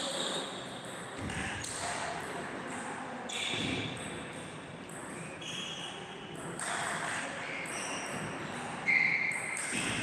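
Table tennis balls clicking off bats and tables in rallies, echoing in a large hall, with one sharper knock about nine seconds in.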